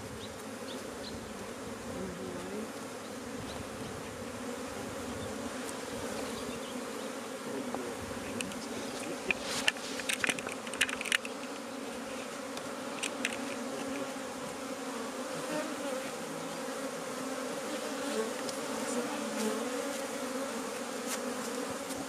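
Honeybees buzzing in a steady hum over an opened hive. A short cluster of sharp clicks comes about halfway through.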